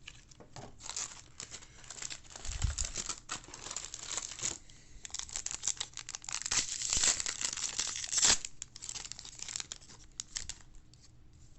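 A 2022 Topps Series 1 baseball card pack wrapper being torn open and crinkled, in two long stretches of ripping and crackling, with a low thump about two and a half seconds in.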